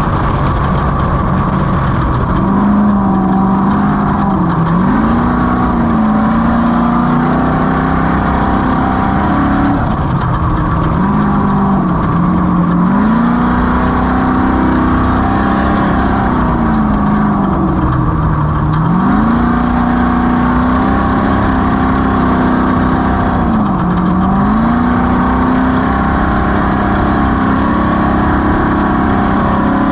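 Race vehicle engine running hard under a steady noisy haze. Its pitch drops sharply and climbs back up about four times as it slows and accelerates again.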